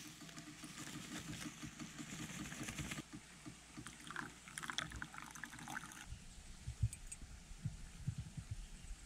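Instant coffee granules and then milk being poured into a stainless steel mug of hot water. There are splashy pouring sounds in the middle, and a few low thumps near the end.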